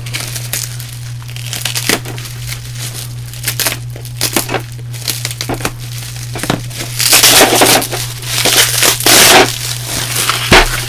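Bubble wrap being pulled open and off a boxed set of sorting drawers, crinkling and crackling in irregular handfuls, loudest from about seven to nine and a half seconds in.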